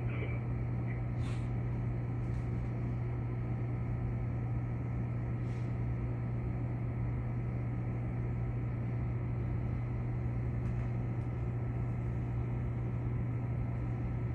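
Steady low hum of a stopped electric train's onboard equipment heard from the cab, with a few faint clicks.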